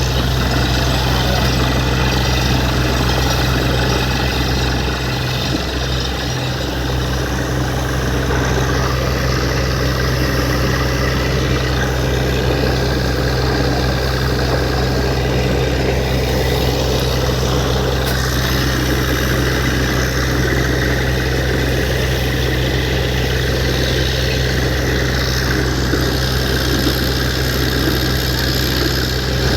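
Heavy borewell drilling rig's engine running steadily, with a constant rushing noise over it.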